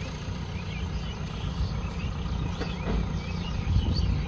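JCB 3DX backhoe loader's diesel engine running steadily with a low rumble, slightly louder near the end.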